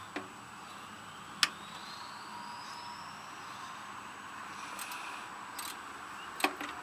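Hand tools clicking against the riding mower's engine and frame while a part is worked loose: a few sharp clicks, two of them loud, about a second and a half in and near the end, over a steady background hiss.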